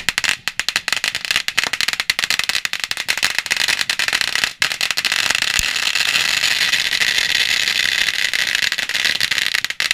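A string of firecrackers going off in a rapid, continuous crackle of bangs, with a brief break about four and a half seconds in, stopping abruptly at the end.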